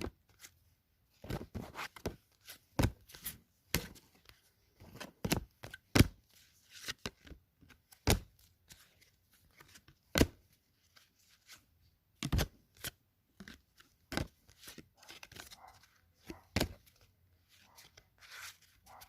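Football trading cards being flipped through one by one by hand, each card giving a sharp snap or click as it is slid off the stack, irregularly, one to three a second.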